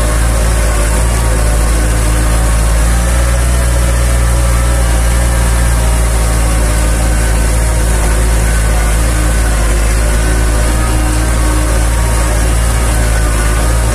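Farm tractor's diesel engine running steadily while its big tyres churn through shallow water.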